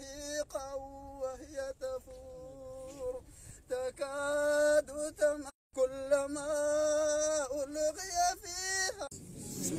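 A single voice chanting melodically in long held notes with ornamented turns and glides, as in solo religious chanting. It breaks off briefly a little past halfway, and a noisier sound of several voices comes in near the end.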